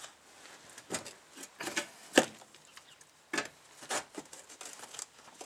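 Several uneven metal knocks as the sharp corner of a steel floor patch plate is pounded down, with one much harder blow a little past two seconds in.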